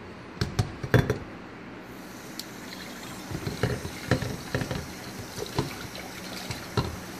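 A few sharp knocks, then about two seconds in a kitchen tap comes on and runs into a stainless steel sink while a container is rinsed under the stream, with light clatters of it against the sink.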